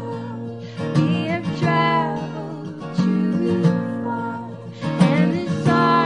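Music: an acoustic guitar strummed, with a chord struck about every two seconds and left to ring.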